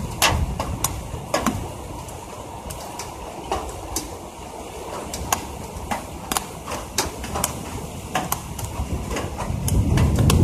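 Heavy raindrops tapping irregularly on a window ledge and on the body of the phone that is recording. A low rumble of thunder swells up near the end.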